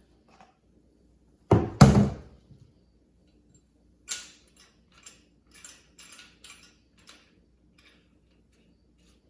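Two quick knocks about a second and a half in, then a run of light scrapes and rustles: the oil dipstick being wiped and handled during the oil-level check.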